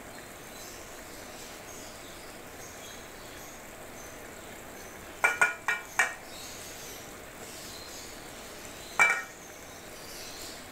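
A plate clinking against a steel cooking pot as halved boiled eggs are tipped in: three quick ringing clinks about five to six seconds in and one more about nine seconds in, over a faint steady hiss.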